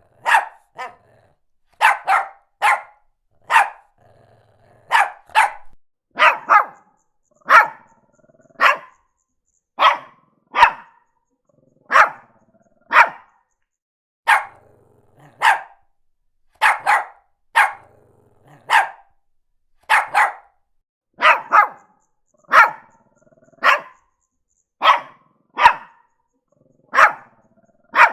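Shih Tzu barking repeatedly in short, sharp barks, about one a second and often in quick pairs.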